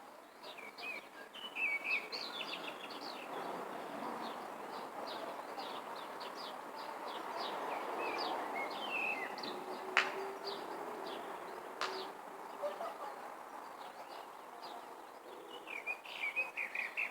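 Small birds chirping and twittering, many short high calls in quick series, over a steady low rush of background noise. Two sharp clicks sound about ten and twelve seconds in.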